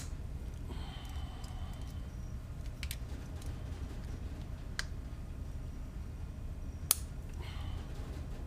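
A few sharp metal clicks and short scrapes from a 5 mm Allen key working the bolts of a motorcycle's regulator/rectifier, the loudest click about seven seconds in, over a steady low hum.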